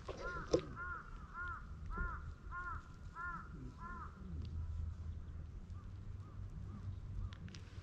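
A crow cawing a run of about seven calls, roughly one every half second, followed by a few fainter caws near the end.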